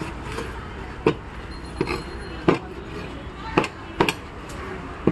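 Heavy curved knife chopping through fish onto a wooden cutting board: about six sharp strikes at uneven intervals.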